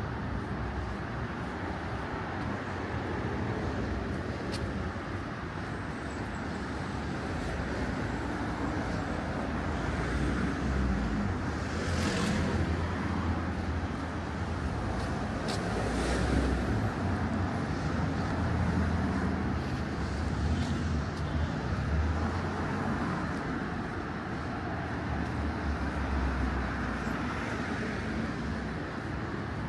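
Urban street traffic: cars passing on the road, a steady rumble of engines and tyres that swells and fades, with a few brief sharp sounds partway through.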